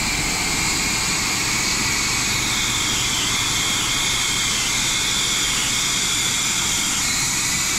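Pressure washer spraying chemical treatment through an X-Jet applicator: a steady, loud, high hiss of the spray jet. The pressure is set too high for the treatment.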